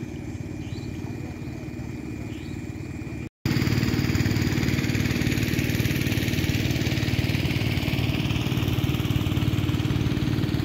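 A small engine running steadily at an even idle-like speed, louder from about three seconds in.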